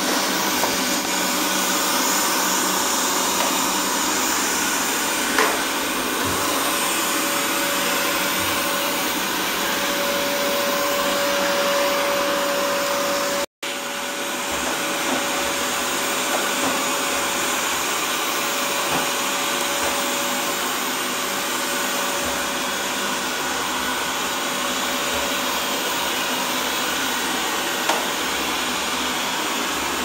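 Xiaomi Mi Robot Vacuum Mop 2S robot vacuum running: a steady whir from its suction fan with a faint steady hum tone through it, and a few light ticks. The sound cuts out for an instant about halfway through.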